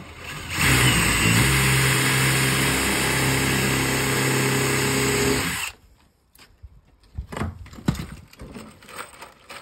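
Power drill boring a pilot hole in wood, running at a steady speed for about five seconds and then stopping abruptly. The hole is drilled so that the nail will not split the wood. Light knocks and clicks of handling follow.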